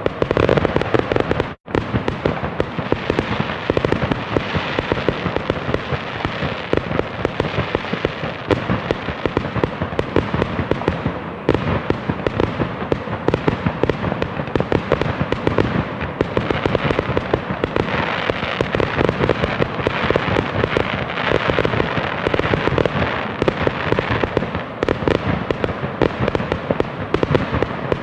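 A continuous fireworks barrage: dense, rapid crackling pops and bangs at a steady loud level, which cuts out for an instant about a second and a half in.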